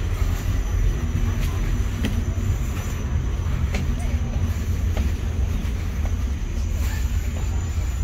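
Steady low rumble on a handheld camera's microphone as it is carried along on foot, with a few faint clicks.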